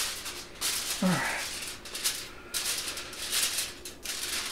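Aluminum foil crinkling and rustling in several bursts as it is pressed down and tucked over a roast turkey in a metal roasting pan. A brief low sound falling in pitch comes about a second in.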